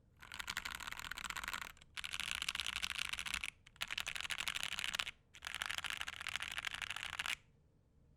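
Fast typing on a Gentleman65 custom mechanical keyboard with Alpaca linear switches in an acrylic plate, a muted clacking. It comes in four quick runs of about one and a half to two seconds each, with brief pauses between, and stops a little over seven seconds in.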